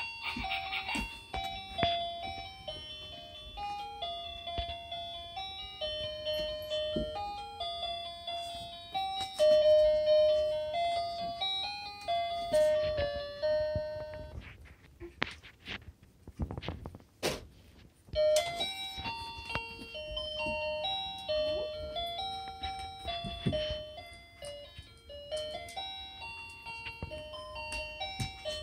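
Background music: a simple melody in light, bell-like chiming notes. It breaks off about halfway through for a few seconds, where only a few sharp clicks are heard, then starts again.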